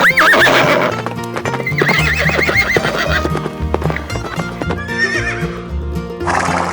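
Horse neighing, a wavering whinny right at the start, again about two seconds in and once more near five seconds, with hoof clip-clops, over background music.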